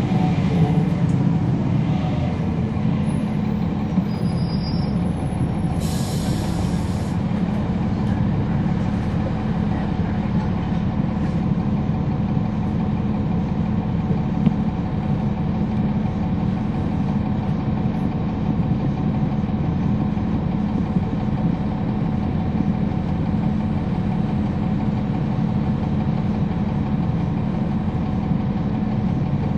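On-board sound of a 2011 NABI 40-SFW transit bus with a Cummins ISL9 diesel engine and ZF Ecolife six-speed automatic transmission, running steadily, with steady tones from the driveline over the engine rumble. A brief hiss about six seconds in.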